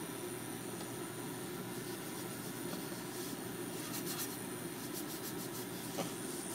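A paper towel held in chopsticks wiping oil over an empty nonstick tamagoyaki pan: faint rubbing scratches in the middle, and a light tap of the chopsticks on the pan near the end, over a steady low hum.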